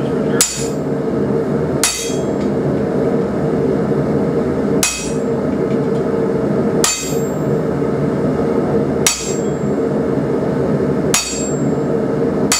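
Hand hammer striking the top die of a spring fuller on an anvil, fullering a hot steel bar: six sharp metallic blows about two seconds apart, each with a brief high ring, over a steady loud drone.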